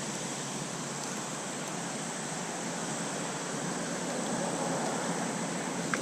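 Steady rushing of flowing stream water, swelling slightly near the middle, with a small click near the end.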